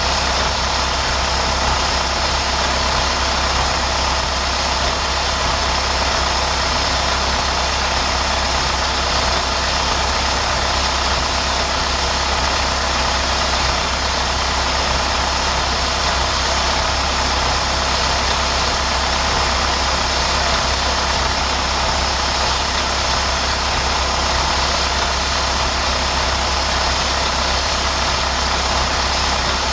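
Diesel engine of farm machinery running at a steady speed, unchanging throughout.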